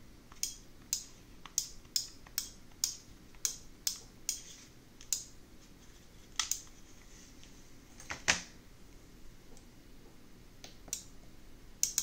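A series of sharp, short clicks at uneven spacing, about a dozen in the first six seconds, then a louder knock a little past eight seconds and a few more clicks near the end. These are remote-control button presses switching inputs on a stereo relay input selector board, with its small signal relays clicking over.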